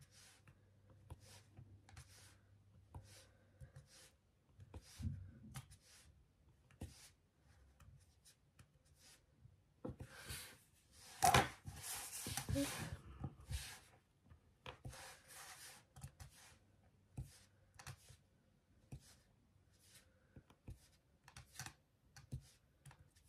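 Faint, short taps of a diamond-painting drill pen picking up resin drills and pressing them onto a wooden ornament, about one a second. About ten seconds in, and again near the middle, a longer, louder rattle of the small drills being shaken in their plastic tray.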